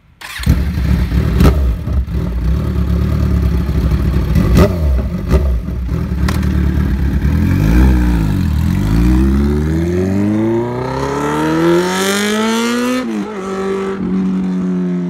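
Kawasaki Z1000 inline-four running loud through a full SC Project CRT exhaust with no catalytic converter. The engine sound sets in abruptly, with a few sharp cracks over the first seconds. About eight seconds in the bike pulls away, its pitch climbing steeply under hard acceleration to an upshift near the end.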